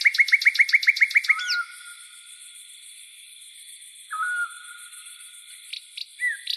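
Birds calling: a fast trill of repeated chirps, about eight a second, for the first second and a half. After that come a few short, separate whistled calls, spaced seconds apart, over a faint hiss.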